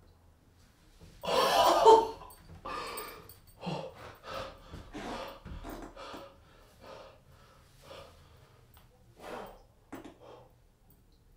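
A man's wordless gasps and heavy breaths: one loud gasp about a second in, then a run of shorter gasps and breaths as he takes in his changed body.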